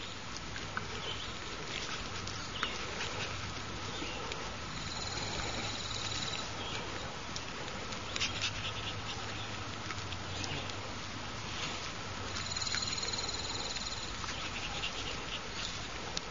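An insect trilling twice outdoors in high, rapid pulses, each trill about a second and a half long. Scattered soft clicks and rustles of small animals moving in grass run underneath.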